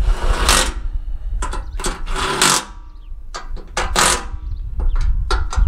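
Tools working bolts on a lawn tractor's mower deck: several short, irregular bursts of metal-on-metal rattling and clanking, over low bumping from handling.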